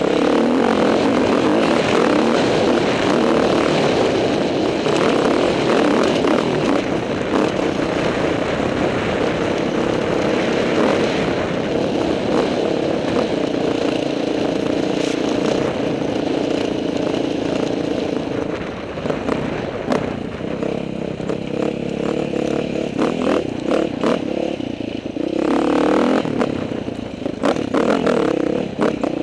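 Dirt bike engine running under the rider on a rough dirt trail, held fairly steady at first, then with the throttle opening and closing from about two-thirds of the way in. Rattles and knocks from the bike bouncing over the ruts come through with it.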